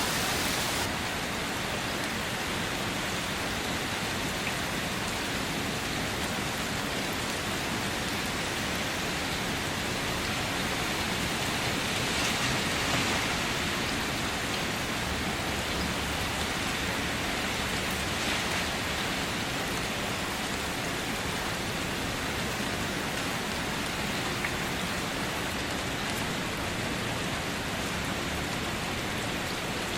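Steady rain falling, an even wash of drops on surfaces with no breaks.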